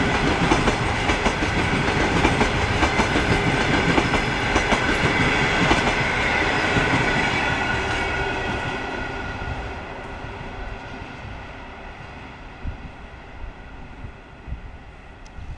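Passenger coaches rolling past at speed, their wheels clattering over rail joints and points. About halfway through, the sound fades away steadily as the end of the train recedes.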